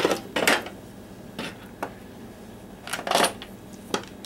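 Hand tools and the opened plastic drill housing being handled on a workbench: about half a dozen short, loosely spaced clinks and knocks.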